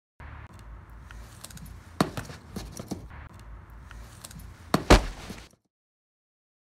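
Scattered knocks and clicks over a low rumble, the loudest a sharp knock about five seconds in; the sound then cuts off abruptly.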